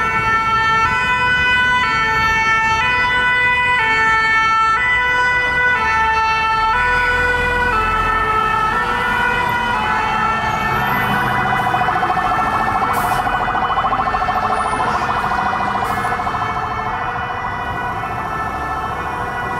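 Fire truck sirens: a two-tone siren stepping back and forth between two pitches, each held for under a second, then from about ten seconds in a fast warbling siren over low engine rumble as the trucks come close.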